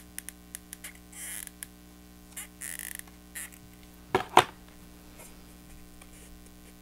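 Heavyweight cardstock being handled and hot-glued: short rustling scrapes of the card and scattered small clicks, then a louder double knock about four seconds in, over a faint steady hum.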